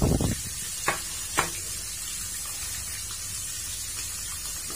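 Fish frying in oil in a pan, a steady sizzle, the fish starting to turn crisp. A heavy thump at the start and two sharp knocks about a second in, from pot and cutting board being handled on the counter.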